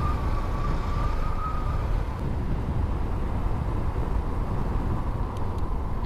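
Motorcycle riding downhill, its engine running with a steady low rumble under wind noise on the mounted microphone. A faint thin whine sounds over the first two seconds.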